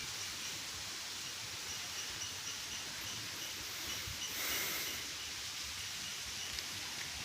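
Rural outdoor ambience near a paddy field: a steady hiss-like background with faint, evenly repeated high chirps. A brief louder rushing swell comes about four and a half seconds in.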